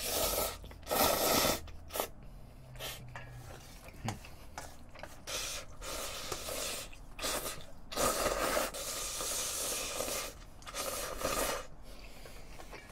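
A man slurping spicy cold noodles in a series of short, noisy slurps, with wooden chopsticks scraping against a stainless steel bowl as he scoops up the last of the noodles.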